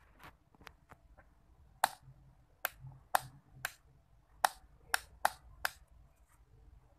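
Mini toggle switch on a Cort G260 electric guitar's pickguard, the switch for a fitted booster, being flicked back and forth: a run of about eight sharp clicks, a few fainter ticks before them.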